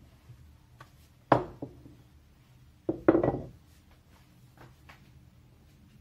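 Hands pressing and patting a piece of bread dough flat into a disc on a silicone pastry mat over a table: a thud about a second in, a cluster of knocks around three seconds, and faint small taps between.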